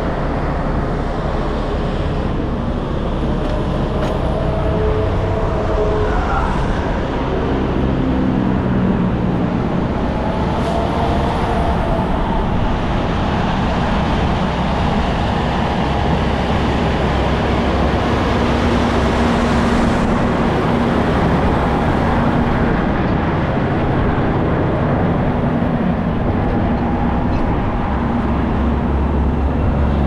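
Highway traffic on a bridge: trucks and cars driving past with engines running steadily, one vehicle's pitch falling as it goes by about seven seconds in.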